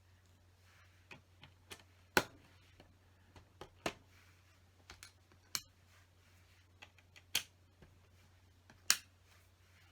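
Plastic LEGO pieces clicking and tapping as they are handled and pressed together: a dozen or so irregular sharp clicks, the loudest about two seconds in and again near the end, over a faint steady low hum.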